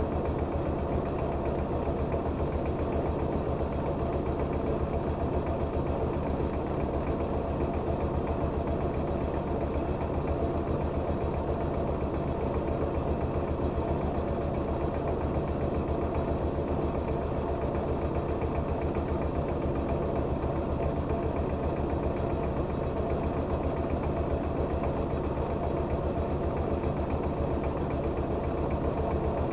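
Engine of a rice-milling machine running steadily at an even speed, with a fine, regular beat.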